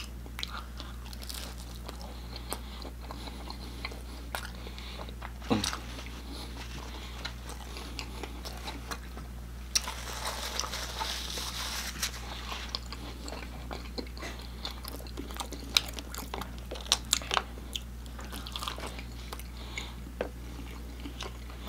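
A person chewing and biting pepperoni pan pizza dipped in sauce: scattered soft crunches and wet mouth clicks, with a paper napkin rustling for about two seconds around ten seconds in. A steady low hum runs underneath.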